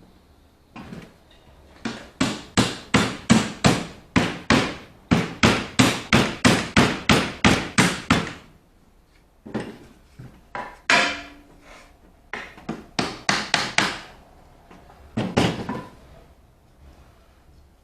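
A hammer striking rapidly in quick runs, about three or four blows a second, with short pauses between runs and a few separate blows near the end.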